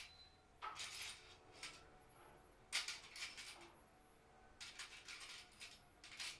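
Rummaging through tools: small hard objects clinking and rattling in four or five short bouts, the loudest about three seconds in.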